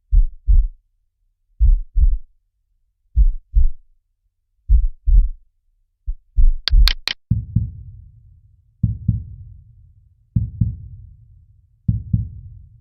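Heartbeat sound effect: paired lub-dub thumps about once every one and a half seconds. About halfway through come three quick clicks, and then the paired thumps go on, deeper, each with a long fading tail.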